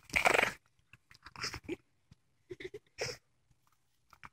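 A small dog making short noises through its nose and throat over its bone: one loud burst in the first half-second, then several brief, quieter ones.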